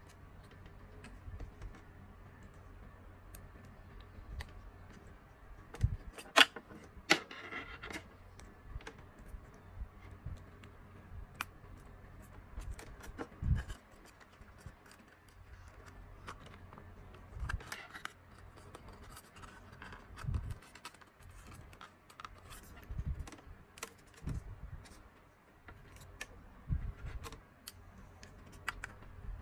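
Hands handling a charging station and its packaging: scattered clicks and knocks of plastic parts with a couple of stretches of crinkling rustle.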